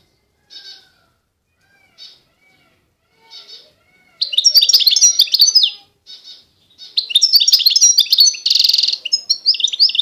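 A finch singing: a few short separate chirps, then from about four seconds in a fast twittering song of quick sliding notes, with one short buzzy note near the end.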